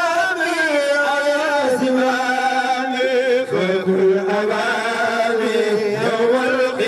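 A man's voice chanting a religious song into a microphone, in long held notes that waver and slide in pitch.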